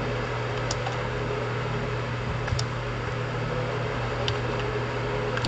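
Steady low hum and hiss of background noise, with a few faint clicks of keyboard keys.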